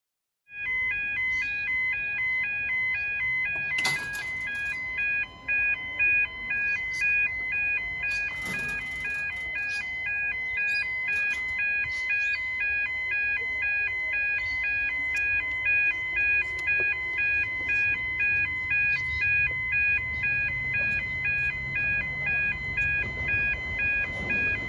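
Level crossing warning bells ringing in a steady repeating pattern of fixed tones, about two rings a second. The low rumble of an approaching electric train grows in the last few seconds.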